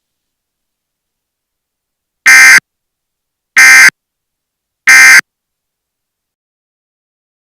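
Emergency Alert System end-of-message (EOM) signal: three short, loud buzzing digital data bursts, about 1.3 seconds apart, each well under half a second. These are the SAME data bursts that mark the end of the severe thunderstorm warning broadcast.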